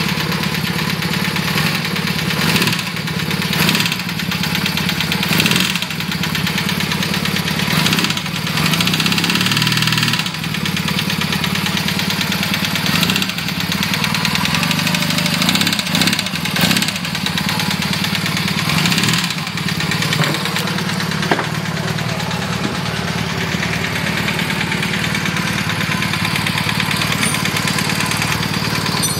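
1982 Honda CM450E's parallel-twin engine idling, with a few brief revs in the first two-thirds. Somewhere in its running is a noise the owner cannot identify.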